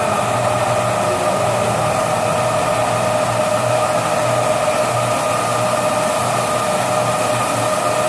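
MAXI S automatic carpet washing machine running: a steady motor whine with a low hum over a constant hiss.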